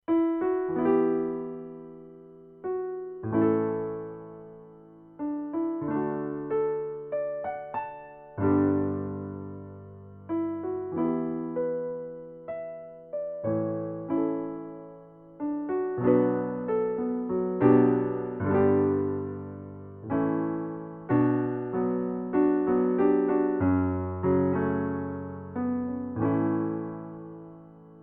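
Solo piano music: slow, gentle chords, each struck and left to fade, with a few quicker notes in between.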